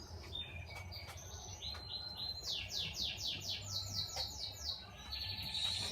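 Canaries singing: runs of rapid, repeated high chirping notes in quick trills, one run after another.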